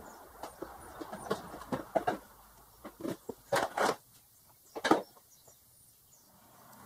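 Plastic side panel of a Honda Recon ATV being prised off its retainer clips with a screwdriver and lifted away: a run of sharp plastic clicks and knocks, the loudest few about three and a half to five seconds in.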